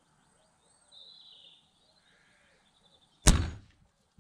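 A single air rifle shot, a sharp crack about three seconds in that dies away within half a second, fired at a rat. Faint bird chirps are in the background.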